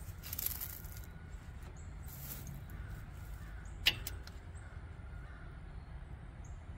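Hands working the mini skid loader's hoses and cable at the arm: brief rustling, then a single sharp click about four seconds in, over a steady low rumble.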